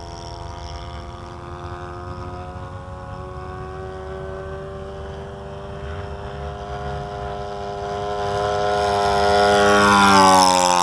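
Thunder Tiger 91FS four-stroke glow engine of an RC P-51 Mustang at full throttle in flight. Its steady note grows louder as the plane approaches, then the pitch drops sharply near the end as it passes close by.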